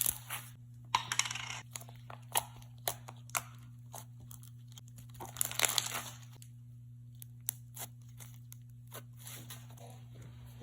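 Clicky slime being stretched and squished by hand, giving scattered sharp clicks and pops, with denser crackling bursts about a second in and around five and a half seconds in. A steady low hum runs underneath.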